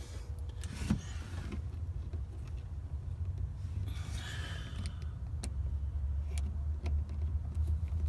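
Hands working on car wiring: scattered light clicks and a brief rustle about four seconds in, over a steady low hum.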